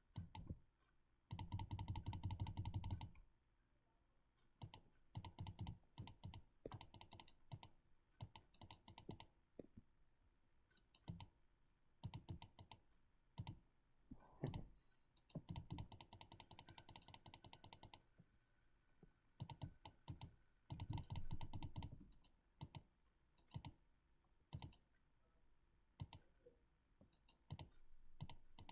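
Computer mouse buttons clicked rapidly and close up, in runs of many quick clicks lasting a second or a few seconds, with short pauses and scattered single clicks between runs.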